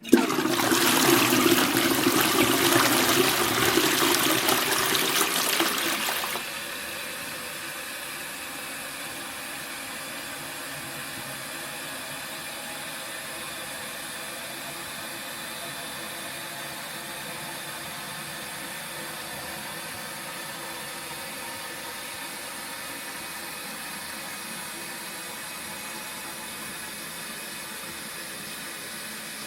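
Toilet flushing: a loud rush of water that drops off suddenly about six seconds in, followed by a steady, quieter hiss of the cistern refilling.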